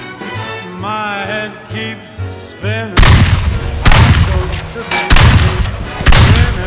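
A swing song with singing, then from about three seconds in four loud gunshots about a second apart, each ringing out over the music.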